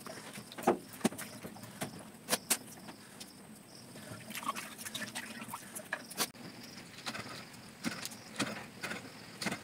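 Irregular clicks and knocks of vegetables, a palm-leaf plate and a metal bowl being handled on a wooden chopping board. Near the end, a few cleaver strokes slicing green chillies on the board.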